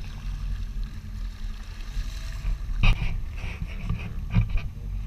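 Boat engine running with a steady low hum, with several sharp knocks against the boat from about three seconds in, the loudest near the start of that run.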